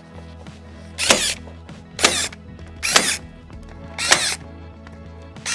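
Cordless electric stapler firing staples through a vapour-retarder membrane into timber studs: a short whirring shot about once a second, five times.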